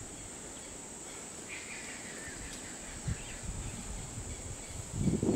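Steady high-pitched insect drone with a few faint bird chirps, a single low knock about three seconds in, and a louder low rustle near the end.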